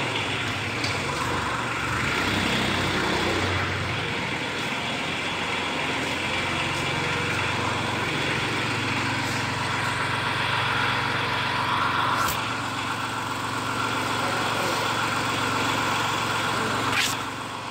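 Shibaura compact diesel tractor engine running steadily as the tractor is driven at low speed. Two short sharp knocks come in the second half.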